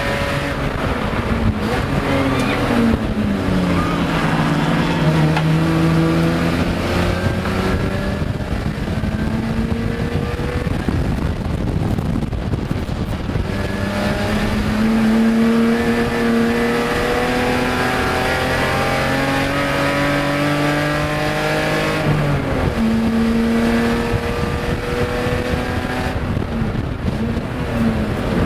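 BMW E30 SpecE30 race car's 2.5-litre straight-six heard from inside the cockpit under racing load. The engine note drops in the first few seconds, climbs slowly and steadily through the middle, and jumps abruptly in pitch about 22 seconds in before climbing again, over constant road and wind noise.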